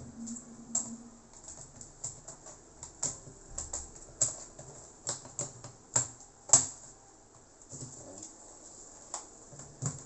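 Irregular small clicks and taps of plastic and metal laptop parts being handled, the loudest about six and six and a half seconds in.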